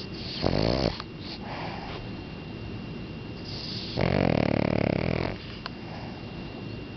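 Boston Terrier snoring in its sleep: a short snore about half a second in, then a longer, louder one about four seconds in.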